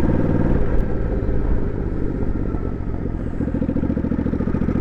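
Motorcycle engine running steadily while riding, easing off slightly about halfway through and then building again.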